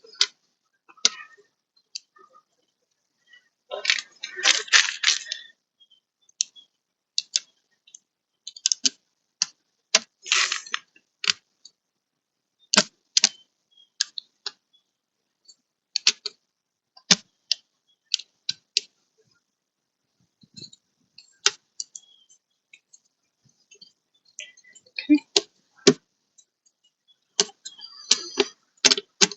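Screws being driven into a car door panel with a hand screwdriver: scattered sharp clicks and a few short scraping rattles of metal screws and plastic trim.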